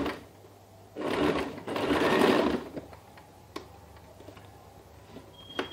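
Usha electric sewing machine stitching a short seam in one run of about a second and a half, starting about a second in, then stopping; it is joining two bias strips along a marked line. A few light clicks follow.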